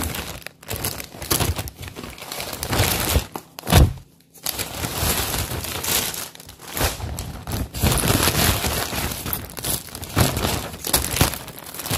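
Plastic parcel packaging being handled and opened, crinkling and rustling in irregular bursts, with a brief lull about four seconds in.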